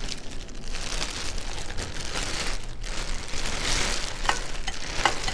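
Thin clear plastic bag crinkling and rustling as hands pull it open, with a few sharp crackles in the second half.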